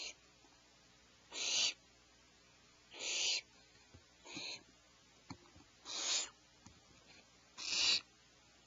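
Owlets giving harsh, hissing calls, a short burst about every second and a half.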